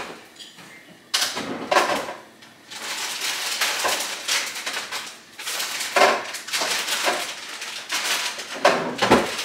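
Kitchen handling noise as more cheese is added: crinkling and rustling of the cheese packaging with scattered clicks, and a sharp knock about a second in.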